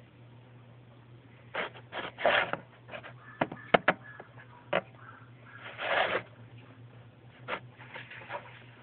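Handling noise: a scattered run of short clicks, knocks and scraping rustles as small objects are moved about, over a faint steady hum.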